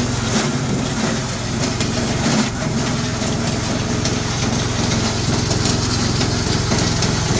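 Chopper-shredder machine running steadily under load while woody branches are fed in and chopped by its blades, with irregular crackling and crunching over the steady motor tone.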